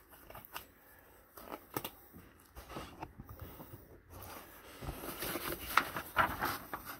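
Handling noises from gloved hands: scattered light clicks and rustles that get busier and louder about five seconds in, as a paper checklist sheet is picked up and rustled.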